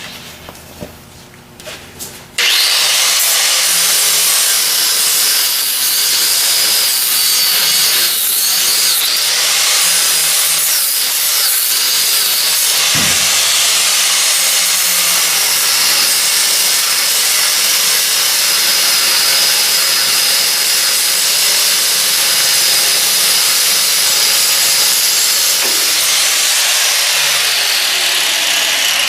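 A few knocks, then about two seconds in a power tool starts cutting through an old rusty steel U-bolt, running steadily with a loud, hissing cutting noise.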